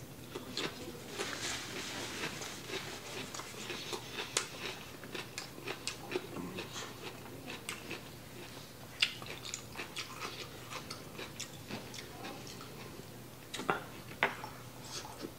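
Mouth sounds of eating: chewing a cucumber slice, with many small crisp clicks and crackles. Near the end, a louder bite into a cheeseburger.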